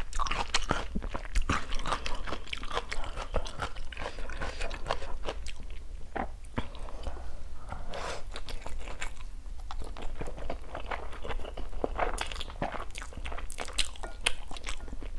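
Close-miked eating: chewing with many sharp, wet mouth clicks and smacks, and a slurp of instant noodles about eight seconds in.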